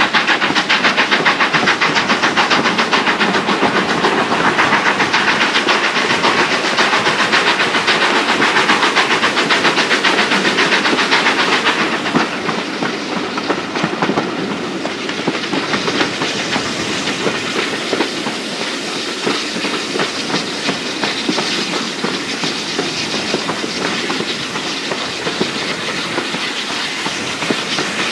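Steam-hauled train heard from the window of a moving coach. The BR Standard 4 class 2-6-0 steam locomotive works ahead with a quick, even rhythm of exhaust beats and hiss, over the clickety-clack of the coaches' wheels on the rail joints. About twelve seconds in the sound drops in level and becomes less dense.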